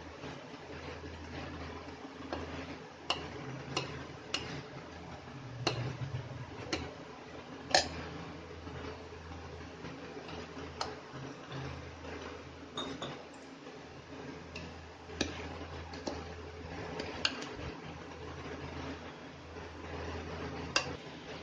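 A hand mixes thick batter in a stainless steel bowl, with sharp, irregular clinks of metal against the steel every second or so over a steady low hum.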